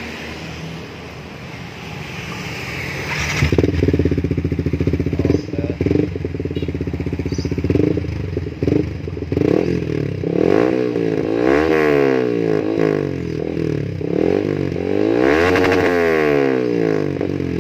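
Yamaha R15 single-cylinder four-stroke engine through a stainless full-system racing exhaust, run open without its dB killer insert. It idles at first, is blipped sharply about three seconds in, then is revved hard twice, the pitch climbing high and dropping back each time.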